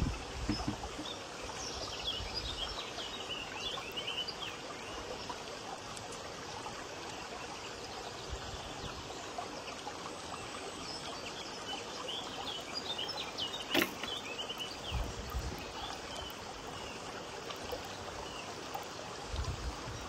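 Outdoor ambience: a steady rushing background noise with small birds chirping in two spells, about two seconds in and again past the middle. A single sharp click comes just before two-thirds of the way through, and a few low bumps come near the start, past the middle and at the end.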